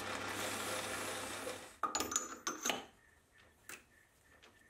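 A hand-held abrasive tool rubbing against a Morse taper turning in the lathe gives a steady scraping hiss, as the taper is cleaned up. It fades out after about a second and a half. A few sharp metal clicks and knocks follow, then near silence.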